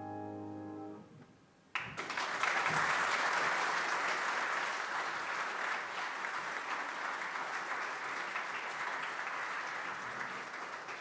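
A grand piano chord dies away, then after a brief pause audience applause breaks out about two seconds in and continues steadily, thinning out near the end.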